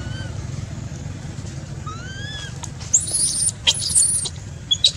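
Baby macaque giving a run of short, very high-pitched squeals from about three seconds in, over a steady low rumble and a few faint rising chirps.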